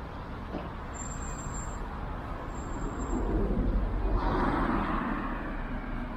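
Street traffic noise, with a vehicle passing close by and growing louder about three to five seconds in. A thin high squeal sounds briefly twice early on.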